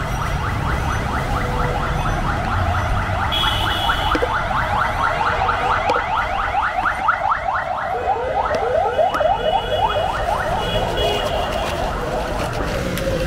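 Electronic vehicle alarm sounding a fast, repeating run of short rising chirps, several a second, that stops near the end. Steady low traffic rumble runs underneath.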